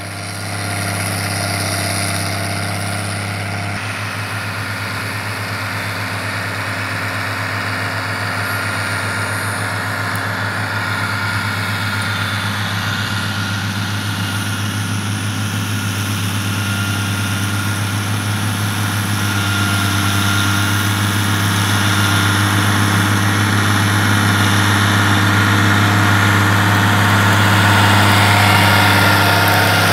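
CBT 2600 tractor's turbocharged Mercedes-Benz 352 six-cylinder diesel running steadily while pulling a seven-row planter at work. It grows gradually louder toward the end as the tractor comes close.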